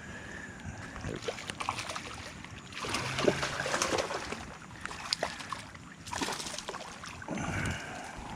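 A ladyfish splashing at the water's surface in several bursts, the biggest about three seconds in, with scattered small clicks between.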